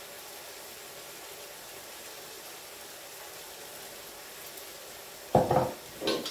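Chicken pieces frying in a pan with a steady, faint sizzle. A little over five seconds in, a jar is set down on the worktop with a thud, followed by a second, lighter knock.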